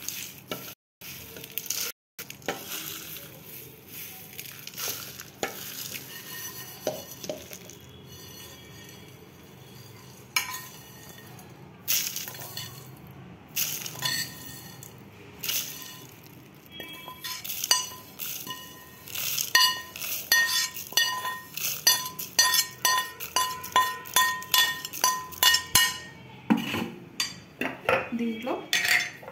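Dry whole roasted spices being scooped out of a steel pan and transferred into a plastic mixer-grinder jar: a run of rattles, clinks and taps with a short metallic ring. The taps are sparse at first and come thick and fast over the last ten seconds or so.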